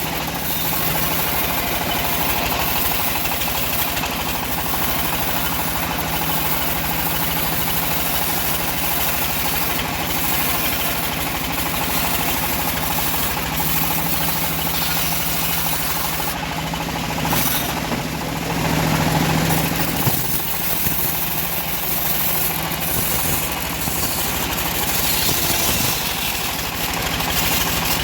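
Engine-driven home-built bandsaw sawmill running steadily through teak, its engine hum constant, getting a little louder for a couple of seconds past the middle.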